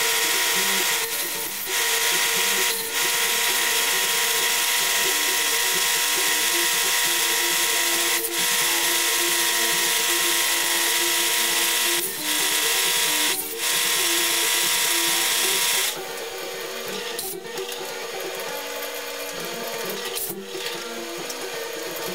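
Bench drill press running a small bit through a broken exhaust bolt in an air-cooled VW cylinder head, a steady machine whine with a few brief dips as the feed is eased. About sixteen seconds in the sound drops to a quieter, rougher run with a few clicks.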